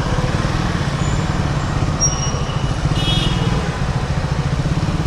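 Triumph Speed 400's single-cylinder engine running with a fast, even low pulse while riding through slow traffic. A short high-pitched beep comes about three seconds in.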